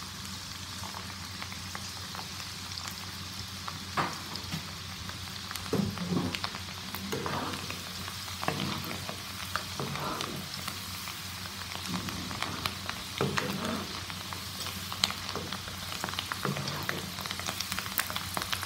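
Soaked chana dal deep-frying in hot oil: a steady bubbling sizzle. A slotted steel spoon stirring the dal gives a few short knocks and scrapes against the pan.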